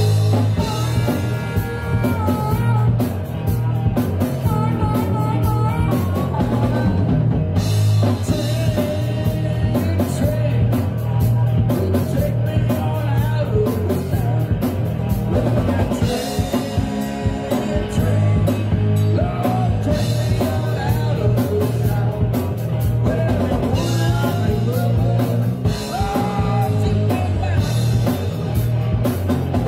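Live rock band playing loud and steady: drum kit, bass guitar and electric guitars, with a lead of harmonica and vocals from the front man.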